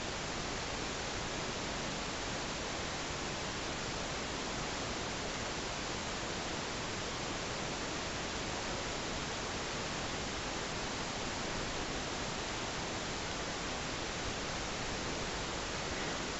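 A steady, even hiss with no other sounds.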